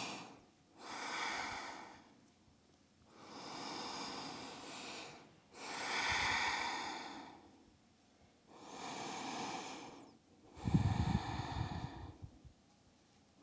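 A woman's slow, deep yoga breathing, audible air drawn in and let out in long alternating breaths, about three full breaths. One exhale near the end carries a low rumble.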